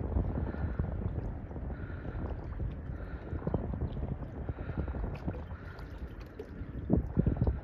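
Wind buffeting the microphone over choppy river water: a steady low rumble with irregular pops, gusting about three and a half seconds in and again near the end.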